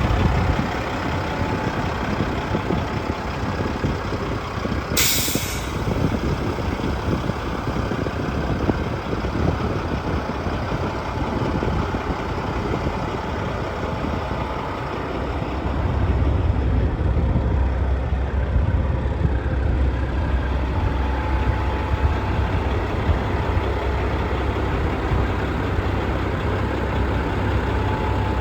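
Peterbilt 379's CAT C15 diesel engine running steadily, with a short, sharp hiss of air about five seconds in. From about sixteen seconds the low rumble grows louder.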